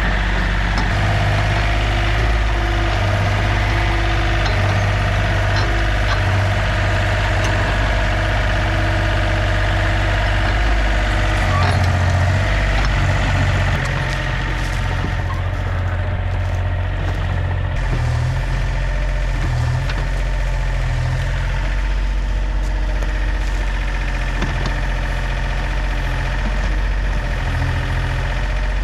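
Older John Deere 30 compact excavator (a Yanmar-built machine) with its diesel engine running steadily while it is operated, a little quieter from about halfway through.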